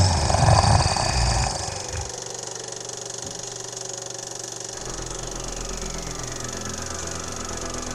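A monster roar sound effect, loud for about the first second and a half, over a steady, eerie drone of held tones.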